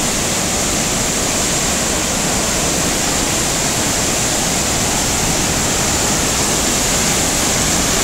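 A large waterfall pouring into a rocky plunge pool and the whitewater stream below: a steady, loud rush of water.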